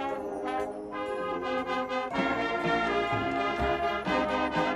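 Marching band playing: the brass holds and moves through sustained chords, the full band coming in louder about two seconds in, with a few low percussion booms in the second half.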